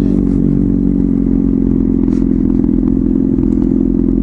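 Motorcycle engine running at steady low revs, holding one even pitch with no revving, and a faint tick about two seconds in.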